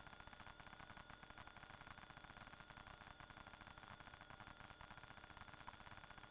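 Near silence: faint steady hiss and fast crackle from the dashcam recording, with thin steady whines.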